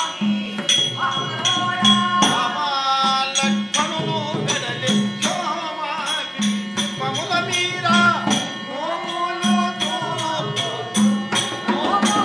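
Folk singing over a steady beat of sharp clicks and a low drum pulse about once a second: the music accompanying a shadow-puppet play.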